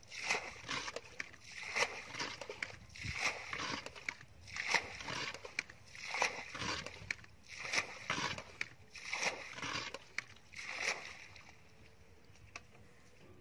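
Metal bucket scooping muddy water and flinging it out, again and again, each throw a slosh and splash, roughly every second and a half: a shallow pool being bailed out by hand. The splashing stops near the end.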